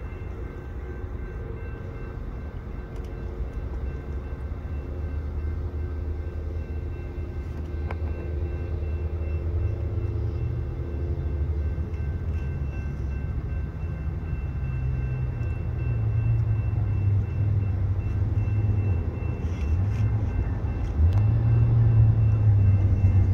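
Approaching Metrolink train's diesel locomotive: a low engine drone that grows steadily louder, its pitch shifting up and down a few times in the second half and loudest near the end.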